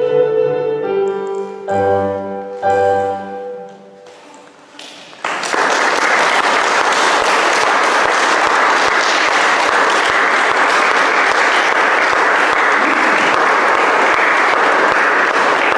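A violin and electronic keyboard duet ends on two short chords that die away. About five seconds in, applause starts and keeps going steadily.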